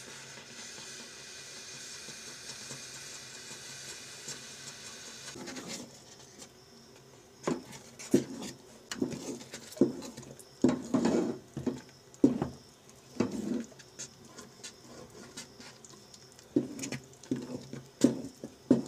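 Wooden spoon stirring and beating thick, paste-like haleem in a metal pot: irregular wet slaps and scrapes in spurts, starting about seven seconds in. Before that, a steady hiss.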